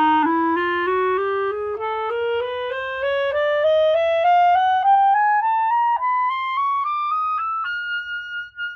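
Solo clarinet playing an ascending chromatic scale, note by note at about three or four notes a second, climbing from the low register up into the high register. It ends on a held high note.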